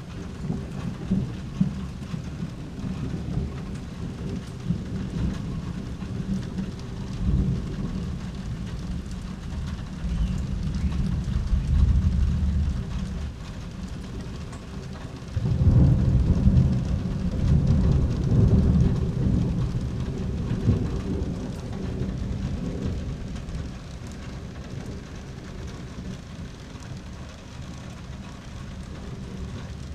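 Steady rain falling, with thunder rumbling: one deep rumble swells about a third of the way in, then a louder one breaks in suddenly about halfway through and rolls on, dying away slowly.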